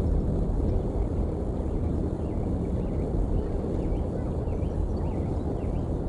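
Steady low rumble of outdoor background noise on a cam microphone, with faint short bird chirps scattered through, more of them in the second half.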